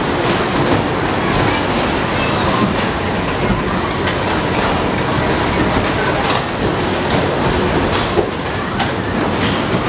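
Zipper carnival ride's machinery running with a steady rumble and rattle as its cages are moved round past the loading platform, with scattered metal clicks and clanks.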